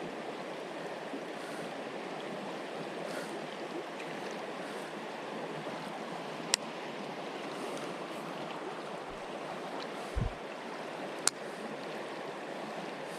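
Running creek water, a steady rushing. Two sharp clicks, about five seconds apart, and a brief low thump between them.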